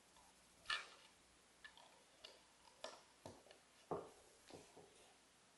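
Small plastic Lego pieces clicking as they are handled and pressed together, a run of light, irregular clicks with the sharpest one about a second in.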